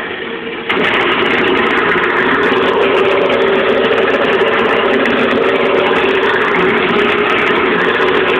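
Wood lathe spinning a long wooden spindle while a hand-held turning tool cuts it: a steady motor hum under the continuous rough noise of the cut. It grows louder about a second in and then holds steady.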